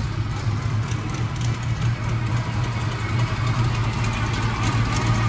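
Chevrolet 350 V8 with a performance cam idling steadily.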